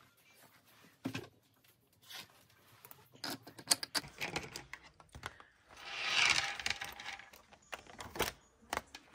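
Desk handling of a ring binder and a paper card: scattered clicks and knocks, a sharp one a little before four seconds in, then a longer rustle of binder pages being flipped about six seconds in, and another click near the end.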